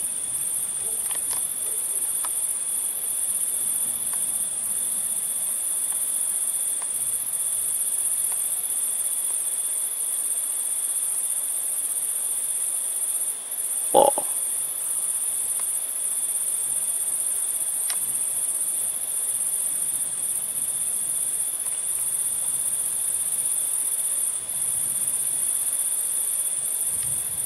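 Crickets trilling steadily in a continuous high-pitched chorus, with a fainter, lower steady trill beneath it. A single short knock about halfway through.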